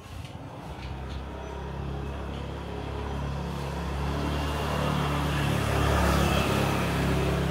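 A motor vehicle passing close by: its engine grows steadily louder as it approaches, is loudest about six seconds in, and begins to fade.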